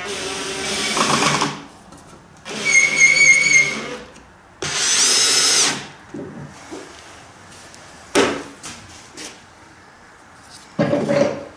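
Cordless drill/driver driving screws into the glued ends of a 2x4 wooden frame in three runs of a second or so each, the motor pitch rising in the third. A few sharp knocks and a short burst of handling follow in the second half.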